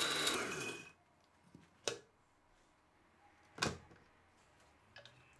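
Countertop blender motor running on a thick spinach-and-cashew pesto, then winding down with falling pitch and stopping about a second in. Afterwards two short knocks, and faint clicks near the end.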